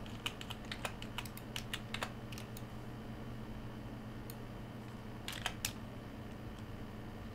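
Computer keyboard keys and mouse buttons clicking: a quick run of clicks in the first two seconds or so, a single click past the middle, and a few more about five and a half seconds in, over a low steady hum.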